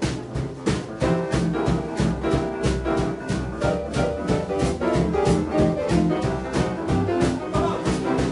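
Boogie-woogie jazz played by a band, the piano and the drums keeping a steady beat of about four strokes a second.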